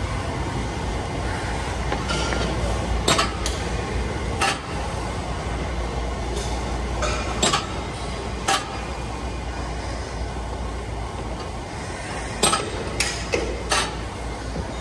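Weight-stack leg press machine in use: the metal plates of the stack clink and knock sharply about nine times, irregularly and in a cluster near the end, over a steady gym hum.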